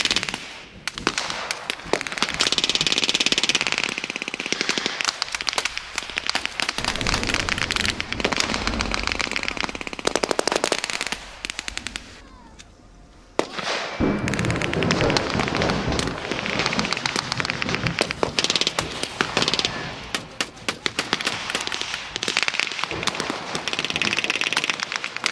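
Heavy, rapid blank gunfire from WWII-era rifles and automatic weapons: many overlapping shots and bursts, with a short lull about halfway through.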